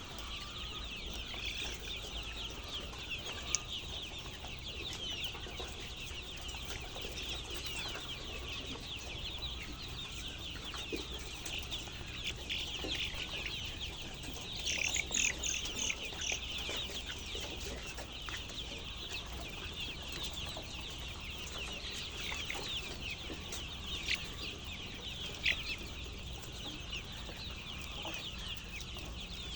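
A large flock of chickens calling all at once: a dense, continuous chatter of many short, high peeps and clucks. A louder flurry of calls comes about halfway through, and a low steady hum runs underneath.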